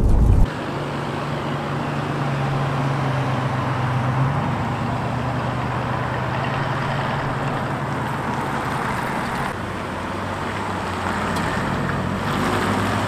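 Cars driving past on a city street: a steady mix of engine and tyre noise, with a low engine hum in the first few seconds.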